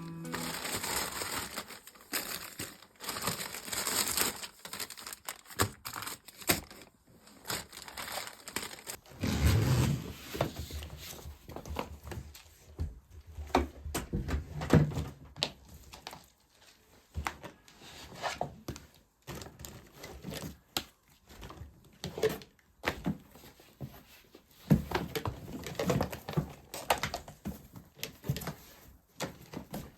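Household handling sounds: irregular rustling and crinkling with many scattered light clicks and knocks.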